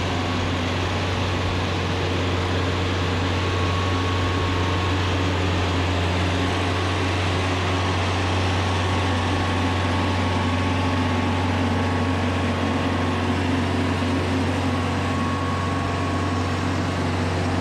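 Kioti RX7320 tractor's diesel engine running steadily under load while moving a large mobile home, a deep, even drone.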